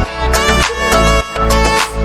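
Background music: an upbeat electronic track with a strong bass beat and sustained melodic notes.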